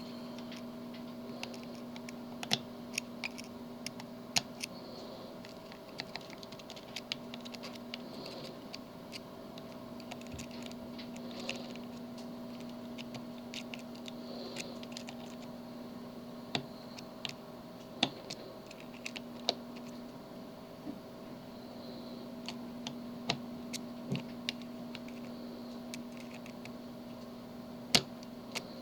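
Small, irregular metallic clicks and taps of a pick pushing down the pins of a tubular lock held under light tension, with a few sharper clicks and one loud one near the end. A steady low hum runs underneath.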